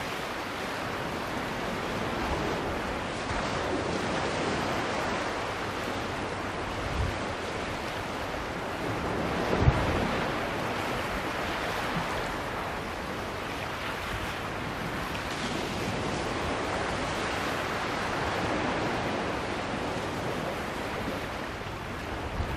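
Small waves washing and breaking among shoreline rocks: a steady surf hiss that swells and eases every few seconds. Wind buffets the microphone now and then, with a brief low thump about ten seconds in.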